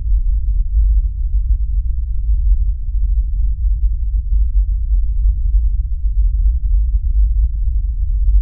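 A deep, steady low rumble with nothing higher in pitch: a sound-design drone laid under the scene in place of any natural sound.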